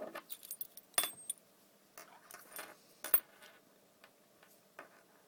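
A Master padlock and lock-picking tools being handled as picking begins: light metallic clicks and jingling. Sharper clinks come about a second in and about three seconds in, then only a few faint clicks.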